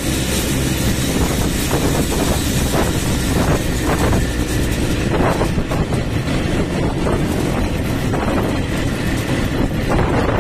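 ATV (quad bike) engine running steadily while the quad is ridden along a road.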